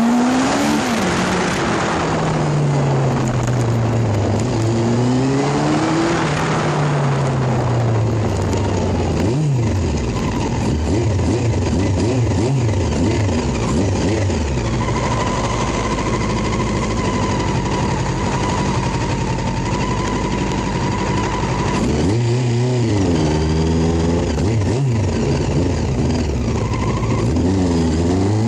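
Vehicle engine running on the move, its pitch falling and rising again and again with speed and gear changes, under heavy wind noise on the phone microphone. A thin steady whine is held for several seconds midway.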